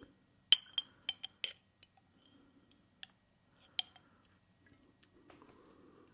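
Cutlery clinking against glassware: a quick run of about five light, ringing taps in the first second and a half, then two more single taps, with softer low handling noise near the end.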